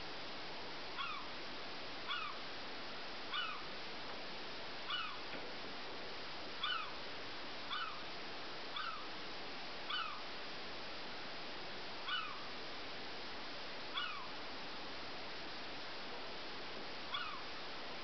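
Domestic cat meowing over and over: about a dozen short meows, one every one to two seconds.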